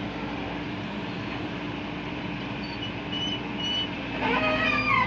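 JCB JS140 tracked excavator's diesel engine running steadily under working load, with a few short high chirps in the second half. Near the end a brief pitched call that falls in pitch.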